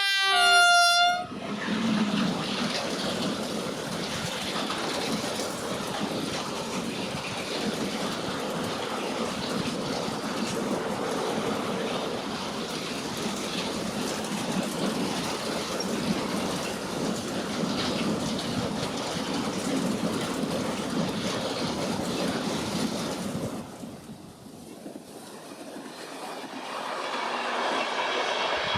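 A train horn sounds one short, loud note at the start. A train then runs past with steady rolling noise of wheels on rail for about twenty seconds, cutting off suddenly, and a different engine-like sound builds near the end.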